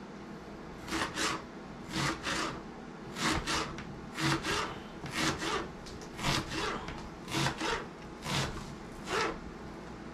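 Kitchen knife slicing through a peeled onion onto a plastic cutting board, a steady run of cuts in quick pairs about once a second.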